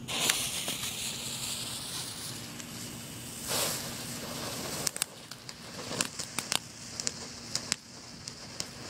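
Small ground firework hissing as its fuse catches and it sprays sparks, with a louder surge about three and a half seconds in and sharp crackles and pops from about five seconds on.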